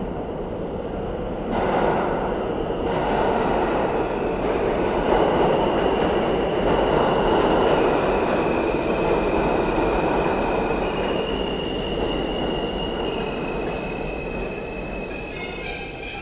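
New York City subway train running through the station on steel rails: a heavy, steady rumble that swells about a second and a half in. From about five seconds in a high-pitched whine holds steady and shifts pitch a few times. Near the end several whining tones stack up.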